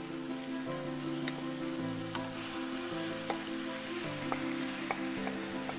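Marinated chicken frying in masala in a pan: a light sizzle with scattered pops. Background music with held notes that change about once a second plays under it.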